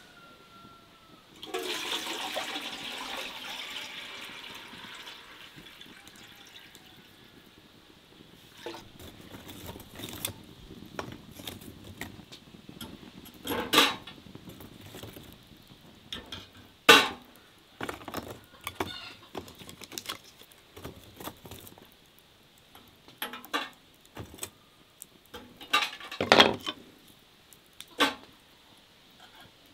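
A few seconds of rushing water, like water being poured, then scattered knocks and sharp metal clanks as firewood and tongs work a fire in a metal bucket beside a tea urn.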